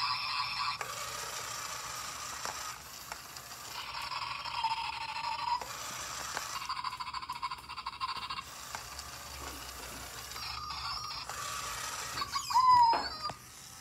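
Zhu Zhu Puppies battery toy dog driving across a tile floor: its small motor and wheels give a steady whirr that starts and stops in stretches of a few seconds. Near the end there is a louder sound whose pitch bends.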